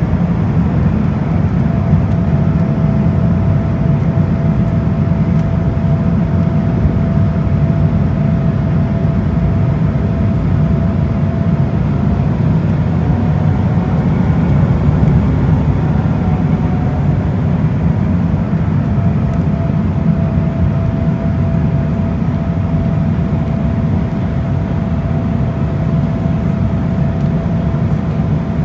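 Cabin noise inside an Embraer E190 airliner: a steady low rumble of engines and airflow, with a faint hum that fades in and out.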